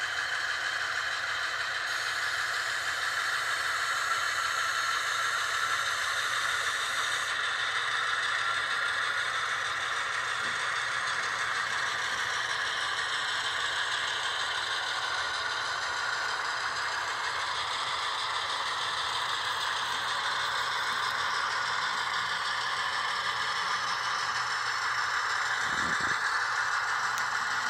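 HO scale model EMD SW1200 diesel switcher locomotive running on the track: a steady mechanical running sound, thin and high with little bass, and a brief low bump near the end.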